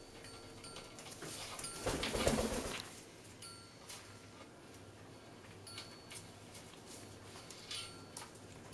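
African grey parrot making a low call lasting about a second, about two seconds in, with faint ticks and clicks around it.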